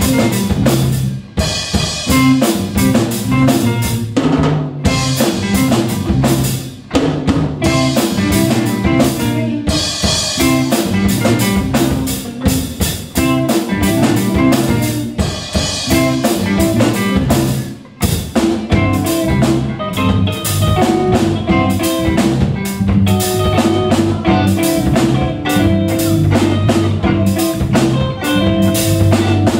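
Live rock band playing: electric guitars, bass guitar and a drum kit driving a steady beat, with a few brief breaks in the music.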